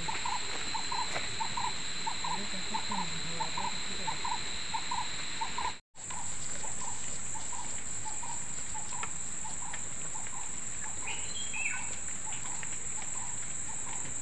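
Steady high-pitched drone of a forest insect chorus, with a short call repeating about two to three times a second. The sound cuts out for a moment about six seconds in.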